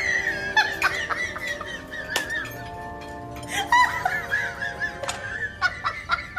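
A person laughing in two bouts of quick, high-pitched bursts, over steady background music.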